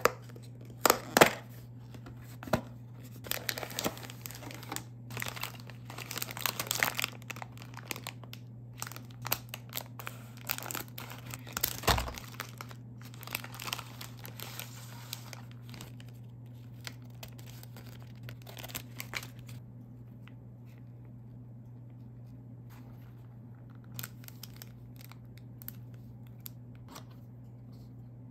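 Packaging of a Popin Cookin hamburger candy kit being opened and handled: cardboard box and paper and foil packets tearing and crinkling, with sharp clicks and taps. After about twenty seconds the handling thins to a few scattered light taps.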